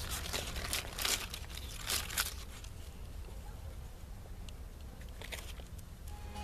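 Short rustling, crinkling noises as a dog noses and sniffs among plantain leaves on concrete, in a cluster about a second in, another about two seconds in and a few more near the end, over a low steady hum.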